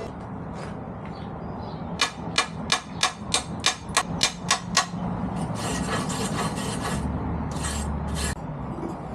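Chipping hammer knocking slag off a fresh arc weld on a steel firebox door: about ten sharp metallic strikes, roughly three a second, then rasping scrapes over the weld.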